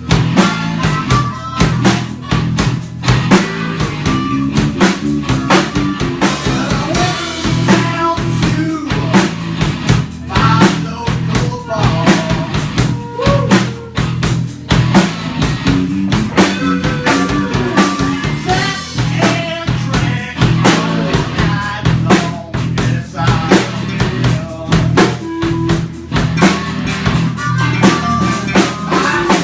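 A live band playing at a jam session: a drum kit keeping a steady beat under a bass line, with guitar playing the melody.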